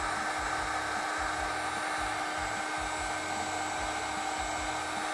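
Electric heat gun blowing steadily, an even rush of hot air with a faint steady whir, shrinking the heat-shrink sleeve of a crimped butt connector on a wire.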